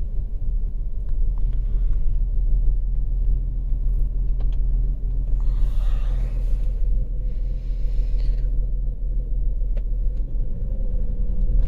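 2008 Volkswagen Passat 3.6-litre V6 engine running rough with a steady low rumble, misfiring; the fault codes show fuel rail pressure too low. A couple of brief hisses come in about halfway through.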